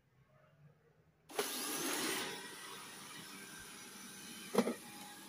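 Xiaomi Mi robot vacuum's suction fan switching on about a second in, spinning up with a brief rising whine, louder at first and then settling into a steady whir. A single sharp knock near the end.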